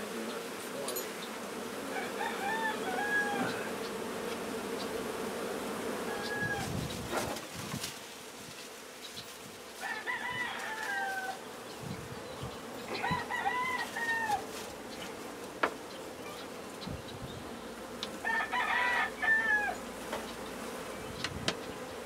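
Honey bees from an opened hive buzzing in a steady hum, while a rooster crows repeatedly, about five times. A few light knocks from handling the hive can also be heard.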